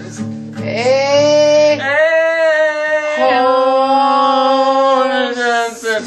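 A man singing two long, high held notes while strumming an acoustic guitar; the strummed chord rings under the first couple of seconds, then the voice carries on alone.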